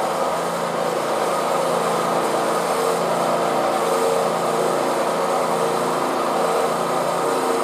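Universal testing machine's drive running at a steady hum with several steady tones as it moves the machine's lower platen into position.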